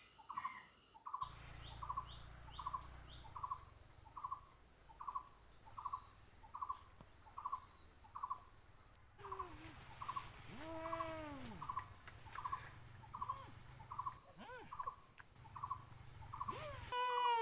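Forest ambience: a steady high-pitched insect drone, with a short call repeating about once a second. From about halfway through, birds call with notes gliding up and down.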